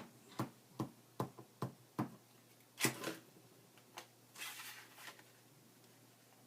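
A run of about six light, evenly spaced taps on a craft table, a louder knock about three seconds in, then a short papery rustle.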